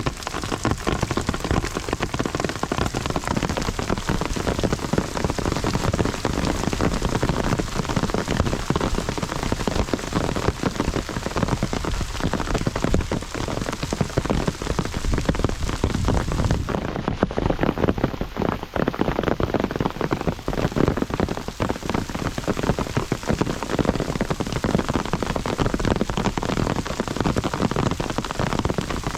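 Heavy rain falling steadily, a dense patter of drops striking surfaces.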